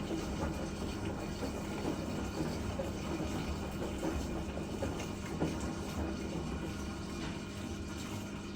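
LG front-loading washing machine at the start of its extraction cycle: a steady motor hum with water draining through the pump and a few light knocks from the drum.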